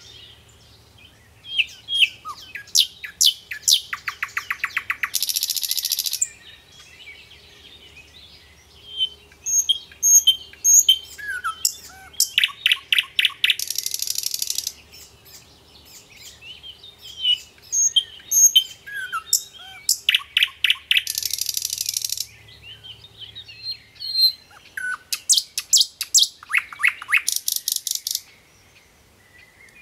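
A songbird singing long, varied phrases of high chirps, whistles and rapid trills. Each phrase ends in a dense, buzzy rattle, and four phrases come with short pauses between them. A faint steady low hum lies underneath.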